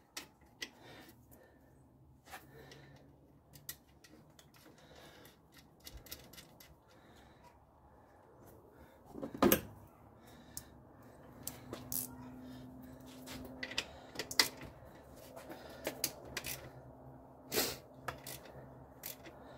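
Scattered light metallic clicks and taps of a hand tool and fasteners as the nut is fitted to the new alternator's electrical terminal, with a sharper knock about halfway through and another near the end.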